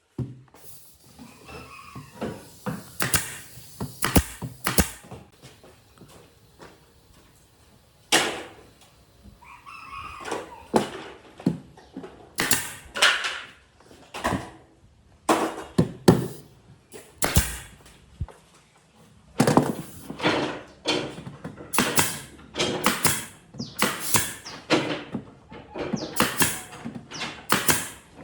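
Irregular sharp knocks and thuds, wood and tools being handled in a woodworking shop.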